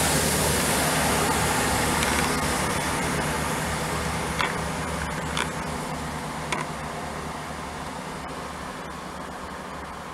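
GWR Turbo diesel multiple unit passing and then running away down the line, its wheel noise and low engine hum fading steadily. Three sharp clicks come between about four and seven seconds in.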